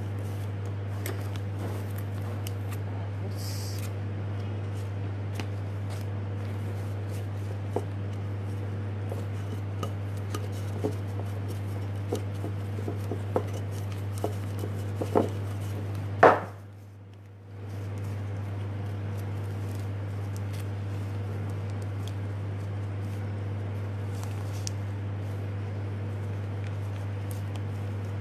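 Small scattered clicks and taps from hands working lace fabric and ribbon at a worktable, over a steady low hum. A sharper click comes about 16 seconds in, and the sound briefly drops out just after it.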